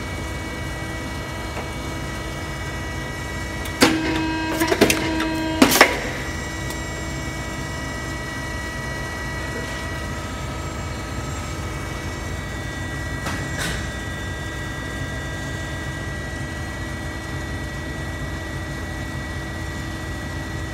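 Pneumatic soap stamping press making one stamping stroke about four seconds in: a sharp clack, a short ringing tone, then more clacks under two seconds later as the cylinder presses the mold and returns. A steady machinery hum runs underneath, and a fainter knock comes later.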